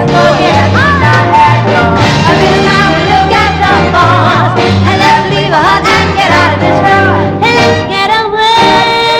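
Live band music with singing: a bass line stepping from note to note under voices sliding between pitches, settling into a long held chord near the end.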